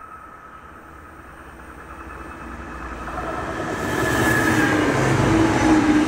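Regiobahn Bombardier Talent diesel multiple unit approaching and passing close by. Its engine and running noise grow steadily louder over the first four seconds, with a steady whine over the rumble as it goes past.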